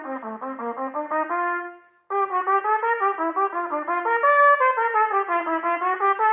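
Trumpet playing a fast étude passage of quick sixteenth-note runs that climb and fall, with a short break for breath about two seconds in.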